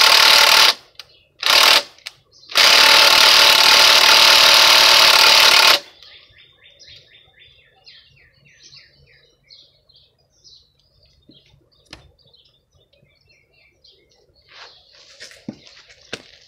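Power driver run in bursts on the oil drain plug: a short burst, then a steady run of about three seconds that stops abruptly, without loosening the plug. Faint bird chirps follow.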